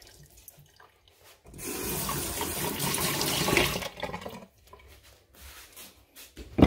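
Kitchen faucet running water into a stainless steel sink for about two and a half seconds, starting about a second and a half in and then shut off.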